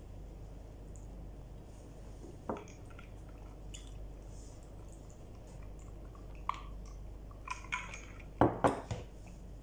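Scattered clinks and taps of ceramic dishes during a meal eaten by hand from a plate, with a ceramic mug in use: a few single clicks, then the loudest pair of knocks near the end.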